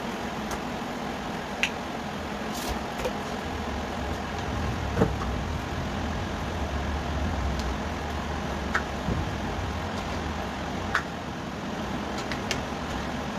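Steady hiss and low hum from the kitchen, with a few short, sharp clicks and taps scattered through it.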